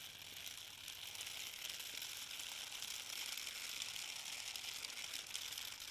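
Small plastic wheels of a toy doll stroller rolling over rough asphalt, giving a steady high rattle.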